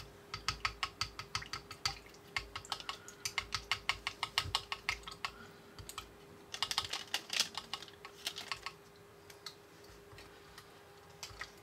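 A small plastic stirring stick clicking and tapping against the clear plastic tank of a toy fryer as powder is stirred into water, in quick runs of about four or five ticks a second. After about five seconds the ticking comes in shorter flurries and then thins out.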